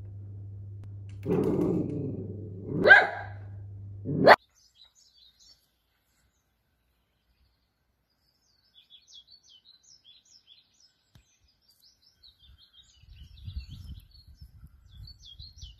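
A dachshund barks about three times over a steady low hum, the last bark the sharpest, then the sound cuts off. Faint birds chirp and something rustles softly in grass afterwards.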